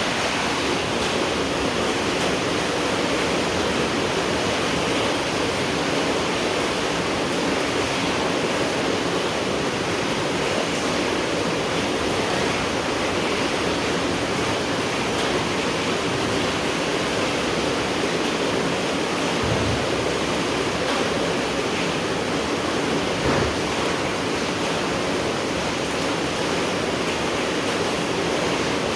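Steady rain falling, an even hiss of rainfall, with two soft low thumps about two-thirds of the way through.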